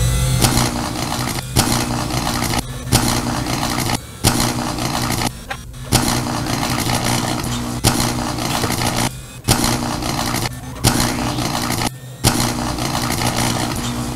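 Dense, layered battle sound effects of laser blasts over a steady low drone. The mix breaks off in several abrupt short gaps and starts again each time with a sharp blast.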